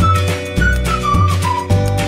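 Background music with a steady bass beat and a high lead melody that falls in short phrases, repeated about once a second.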